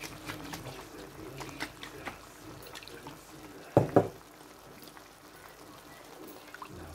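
Chicken and mushrooms cooking in a pan, with scattered small pops and crackles, two sharp knocks close together about four seconds in, then thick creamy mushroom sauce being poured over near the end.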